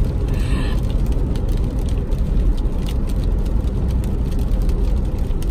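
Steady low rumble of a car driving on a rain-wet road, heard from inside the cabin.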